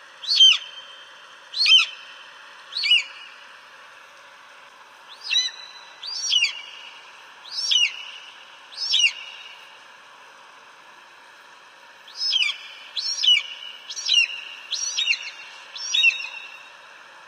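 Eagle calling: a run of short, high cries, each falling in pitch, about one a second, in three bouts of three to five calls over a faint steady hiss.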